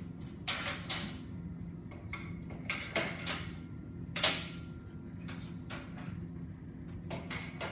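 Scattered knocks and clatter of gym equipment, the loudest about four seconds in, over a steady low hum.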